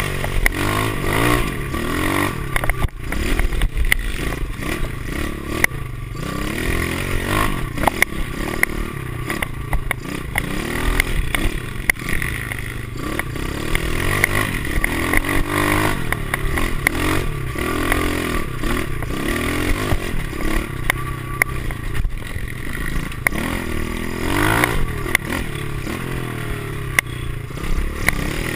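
Pit bike's small single-cylinder four-stroke engine revving up and down over and over as it is ridden hard on a rough dirt trail, with sharp knocks and rattling from the bike over bumps, heard through a handlebar-mounted camera.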